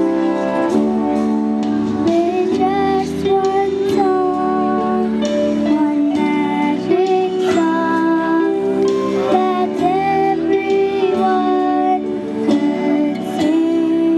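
Music: a children's choir singing with instrumental accompaniment that includes guitar.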